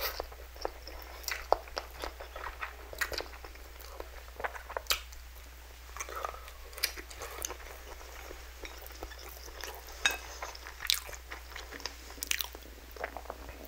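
Close-miked chewing of spicy instant noodles and a sausage: irregular wet mouth clicks and smacks, with bites into the sausage.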